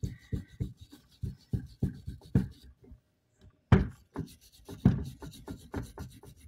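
A small brush scrubbing back and forth over the pitted copper commutator of an old starter armature, about three strokes a second, to clean corrosion off the contact surface. The strokes stop for about a second partway through, then start again harder.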